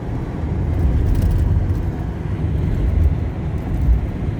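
Ford Econoline E-250 van driving, heard from inside the cab: a steady low engine and road rumble, with a low thump a little before the end.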